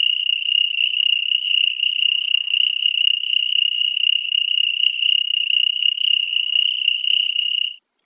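A continuous high-pitched insect trill, rapidly pulsing on one steady pitch, played as the cockroach's sound; it cuts off suddenly near the end.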